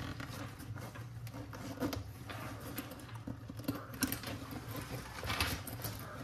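Nylon fabric rustling and small clicks as a Bange backpack is handled and its zippers are worked, with a longer scratchy rasp of a zipper being drawn about five seconds in. A steady low hum runs underneath.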